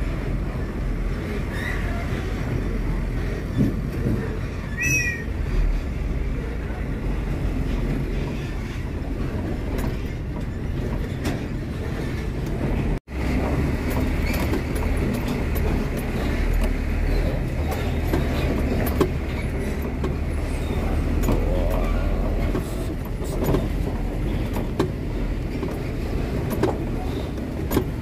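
Hino SG 260TH heavy truck's diesel engine running with a steady low rumble, briefly cutting out about halfway through.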